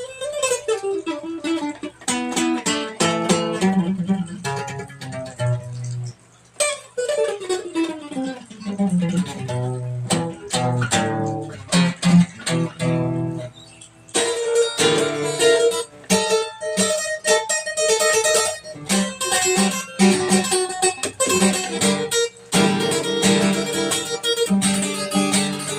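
Plucked-string instrumental music imitating the sound of bamboo in the wind, with notes that slide in pitch, turning brighter and busier about halfway through.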